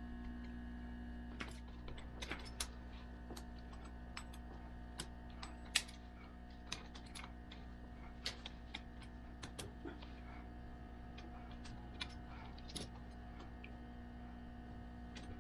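Irregular light metallic clicks and clinks of tire-chain links and a hand tool as a Terra Grip traction chain is worked into place on a tractor's rear tire, over a steady electrical hum.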